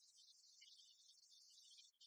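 Near silence, with only a faint high-pitched hiss.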